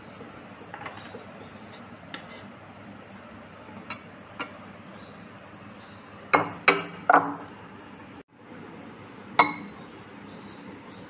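Metal serving spoon clinking against a glass bowl and a cooking pot while rice is scooped and served. A few light ticks come early on, then three sharp clinks in quick succession past the middle and one more near the end.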